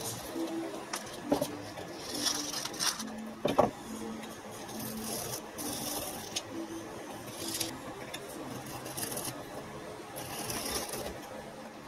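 Sandpaper being handled and rubbed as it is fitted around a plywood sanding spindle: irregular scraping rustles, with a sharp knock a few seconds in, over quiet background music.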